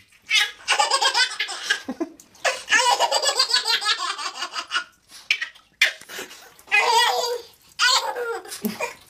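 Baby laughing in several long, high-pitched fits of rapid laughter, with short pauses between the bouts.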